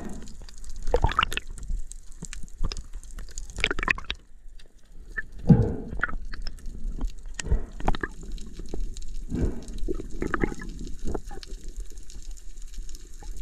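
Water gurgling and sloshing in irregular bursts around an underwater action camera.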